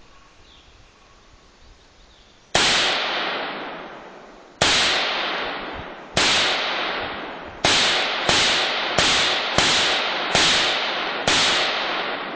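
Smith & Wesson M&P 15 AR-15 rifle firing nine single shots, each with a long echoing tail. The first three are about two seconds apart, and the rest come quicker, under a second apart.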